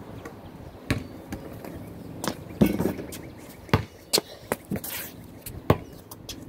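Basketball play on hard ground: a string of sharp, irregular thuds and knocks from the ball and the player's feet close by.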